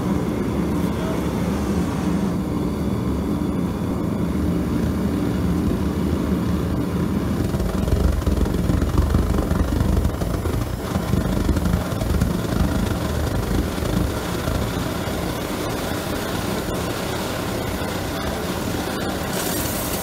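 Homemade propane vortex ring burner running under a mono-tube steam coil with a steady low rushing noise. Near the end a high-pitched hiss joins in as the coil starts jetting steam.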